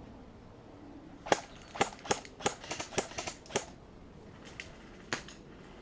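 Airsoft guns firing single shots in sharp cracks, about nine in quick irregular succession, then a few fainter shots near the end.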